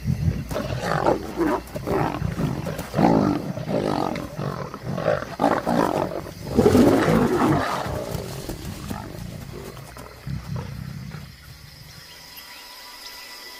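Lions snarling and roaring aggressively while feeding on a kill, a rapid run of loud calls that fades away after about eight seconds.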